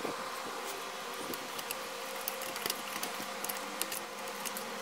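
Steady low hum of room tone, with a few faint, light clicks of small metal parts as a screw is fitted by hand into an outboard's shift rod connector.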